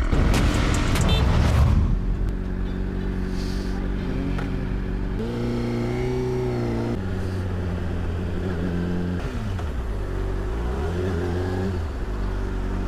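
Sport motorcycle's engine running as the bike is ridden in traffic. Its pitch climbs about five seconds in, drops back around nine seconds and rises again briefly. A rush of noise in the first two seconds makes that the loudest part.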